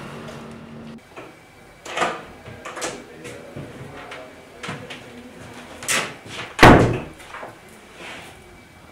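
Interior door being handled and shut: a few clicks and knocks from the lever handle and latch, then one heavy thump about two-thirds of the way through, the loudest sound, as the door closes.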